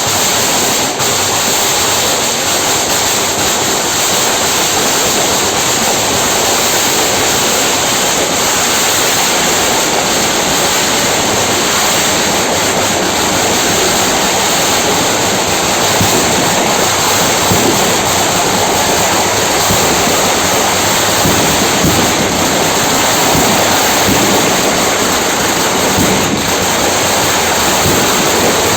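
A steady, loud hissing rush of noise, unchanging throughout.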